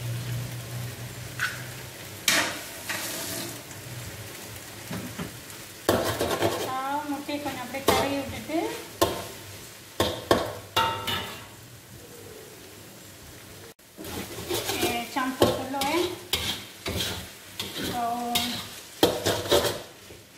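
Yellow noodles stir-fried in a wok: steady sizzling while a spatula scrapes, knocks and clatters against the pan again and again, with an egg just cracked into the frying noodles.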